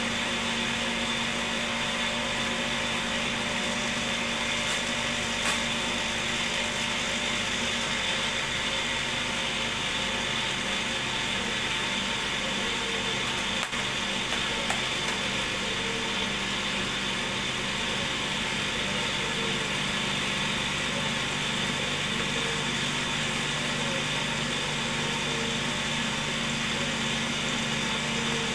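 Cotton candy machine's DC motor running steadily, a constant hum with a high whine.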